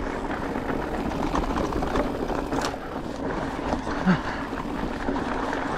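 Mountain bike rolling along a gravel and dirt singletrack: steady tyre and trail noise with small rattles and ticks from the bike, and one brief low sound about four seconds in.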